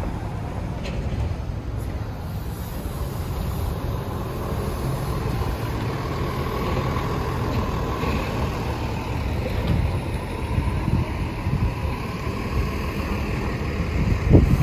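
City bus and car traffic driving past, with a bus's engine hum swelling through the middle as it passes close by. Wind rumbles on the microphone throughout, and a short thump comes near the end.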